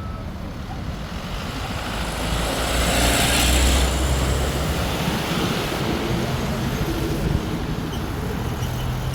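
A bus driving past close by. Its deep engine rumble and tyre hiss swell to a peak about three to four seconds in, then ease back into steady road-traffic noise.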